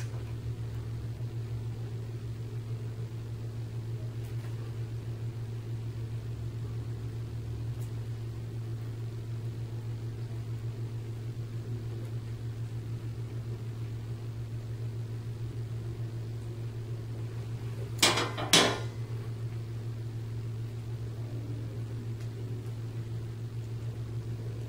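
Steady low electrical hum, with two sharp clicks about half a second apart roughly three-quarters of the way through.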